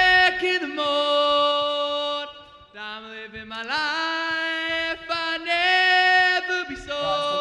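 Lead vocalist singing unaccompanied, holding long notes, with a short break a little over two seconds in.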